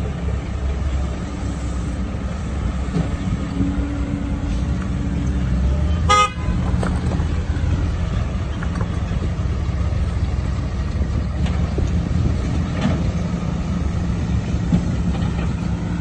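Diesel engines of a dump truck and an excavator running steadily, with one short vehicle horn toot about six seconds in.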